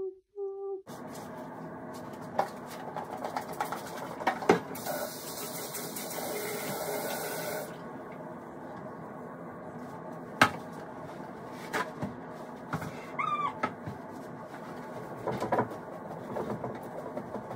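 Bathroom cleaning: knocks and clinks of bottles and objects being handled on a counter, with a hiss lasting about three seconds from about five seconds in, and a brief squeak in the middle.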